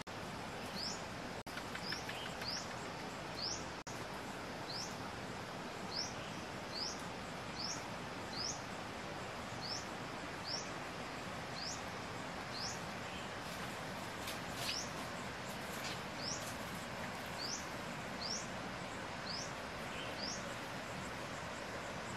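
A bird repeating a short, high chirp about once a second over a steady background hiss.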